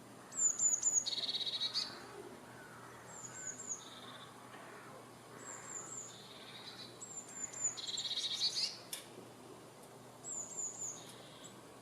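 A small songbird singing a repeated phrase about five times: a quick run of three or four high, falling notes followed by a lower buzzy trill.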